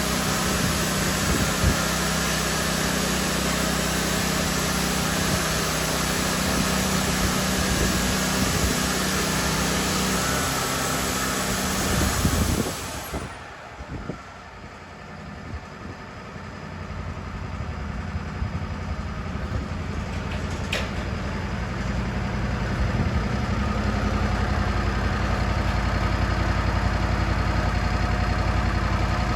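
Wood-Mizer LT40 band sawmill running, with engine drone under a loud hiss for the first half. About halfway through, the sound drops away suddenly, then a low engine sound builds back up and runs steadily.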